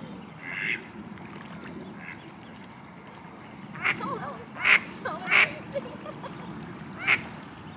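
A duck quacking in a series of short, separate calls, loudest between about four and five and a half seconds in, with one more near the end.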